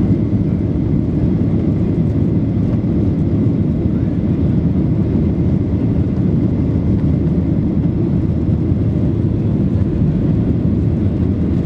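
Steady low rumble inside the cabin of a Boeing 737-800 climbing out just after takeoff: its CFM56-7B engines at climb thrust mixed with airflow over the fuselage, unchanging throughout.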